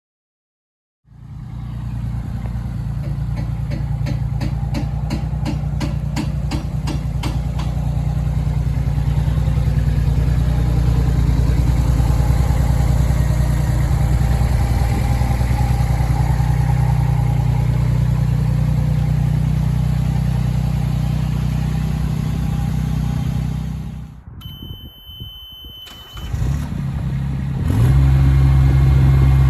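JCB 8008 micro excavator's small diesel engine running steadily, with a regular clatter over the first few seconds. The sound drops away briefly about 24 seconds in, then returns louder at a higher note near the end.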